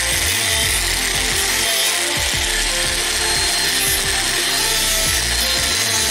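Small electric rotary tool with a sanding disc running steadily and grinding against the edges of thin wooden hull frames, sanding them down. Background music plays underneath.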